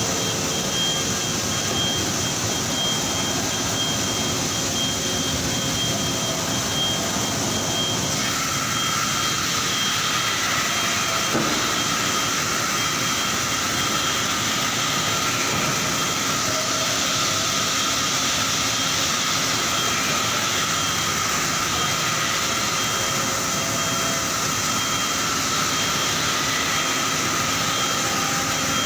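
Steady factory machinery noise on an engine production floor: a continuous mechanical drone with whining tones, one of which comes in about a third of the way through.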